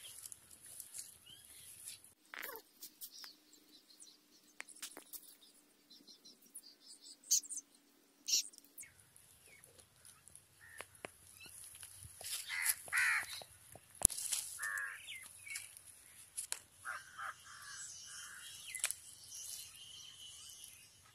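Scattered sharp clicks and scrapes of a knife cutting through a watermelon's rind and the top being lifted off, with birds calling several times in the second half. The loudest sound is a single sharp click about two-thirds of the way through.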